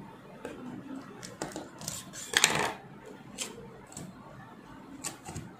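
Clear sticky tape being pulled and cut with scissors: a scatter of short clicks and crackles, the loudest a brief noisy burst about two and a half seconds in.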